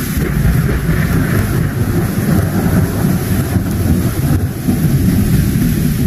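Loud, steady deep rumble with a hiss over it, like rolling thunder.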